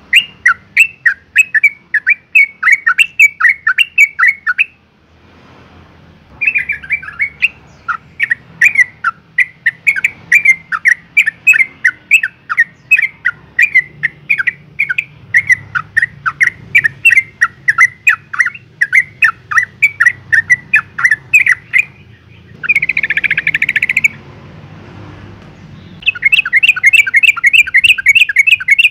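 Female yellow-vented bulbul calling: long, fast runs of short chattering notes, about four a second, broken by short pauses, with a harsh buzzy burst about three-quarters of the way through. It is the call of a female in breeding condition calling a male.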